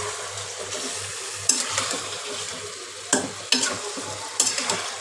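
Chicken pieces frying in hot oil in a pan, sizzling steadily, while a large spoon is stirred through them, with a few sharp knocks and scrapes of the spoon against the pan.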